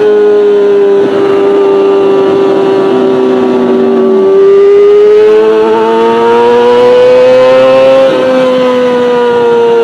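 Kawasaki Ninja ZX-25R's 250 cc inline-four held at high revs, breathing through a BEET Nassert R Evolution exhaust with no catalytic converter. It makes a loud, steady high-pitched tone that climbs slightly, then eases back a little about eight seconds in.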